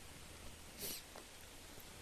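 A short, soft mouth sound from a woman close to the microphone, about a second in, over faint steady hiss.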